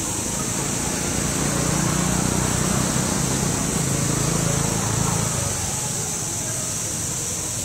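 A motor vehicle engine swells and fades, loudest between about two and five seconds in, over a steady high-pitched hiss.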